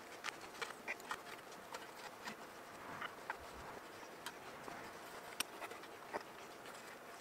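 Light, irregular clicks and taps of small copper parts and a thin metal hand tool being handled and fitted while the foundation ring of a copper model boiler's firebox is assembled.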